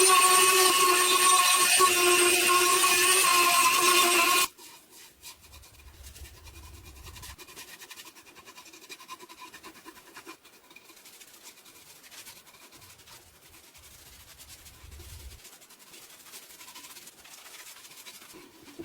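A power tool running with a steady whine, breaking off abruptly about four and a half seconds in. Faint tapping and rubbing sounds follow.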